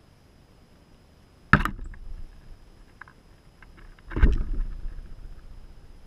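Two sudden knocks with rustling, close to the GoPro and about two and a half seconds apart, each dying away within half a second. A few faint clicks fall between them.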